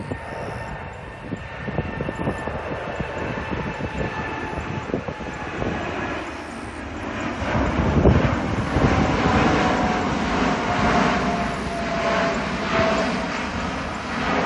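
Jet noise from the four GEnx turbofan engines of a Boeing 747-8 freighter at climb power just after takeoff. It is a dense, rumbling sound that grows louder from about halfway through as the aircraft comes closer, with a faint steady engine whine mixed in.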